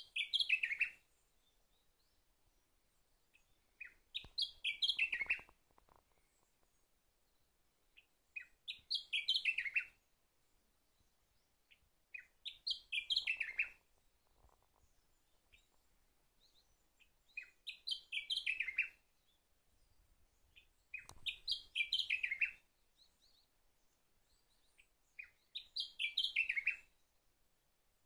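Sakhalin grasshopper warbler singing: a short, loud phrase of a few notes stepping down in pitch, repeated about every four seconds, seven times.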